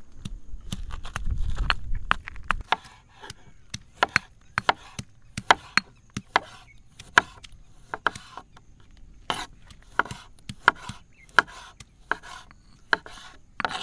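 Large kitchen knife slicing tomatoes on a plastic cutting board: irregular sharp clicks of the blade striking the board, about one or two a second. A low rumble fills the first two or three seconds.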